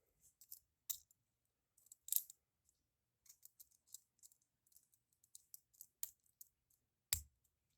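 Lock picking on a Master Lock padlock: faint, scattered metal clicks as the pick works the pin tumblers, with a sharper, louder click near the end.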